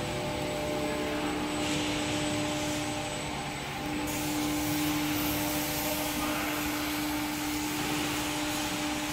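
Steady whir and hum of a PP/PE yarn take-up winding machine running, rows of motor-driven bobbins spinning, with a constant motor tone through it.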